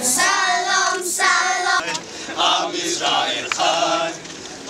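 A group of voices, children's among them, singing together in short phrases of about a second each.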